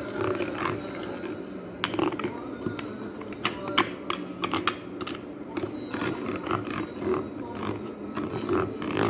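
Kitchen knife tapping and scraping against a plastic hand citrus juicer's reamer, knocking off pulp in a run of irregular sharp clicks and knocks.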